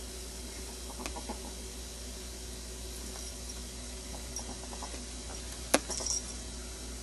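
Ferret making faint clucking dooks in short clusters over a steady background hiss, with one sharp click a little before six seconds in.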